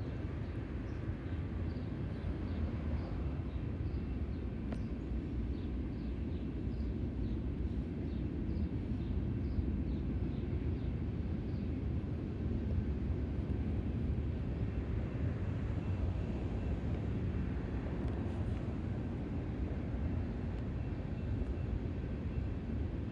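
Steady low rumble of a passing BNSF freight train, even in level throughout.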